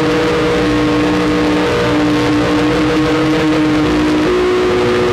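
Harsh noise music: a loud, dense wall of hiss and grinding noise with held droning tones that step to a new pitch about four seconds in.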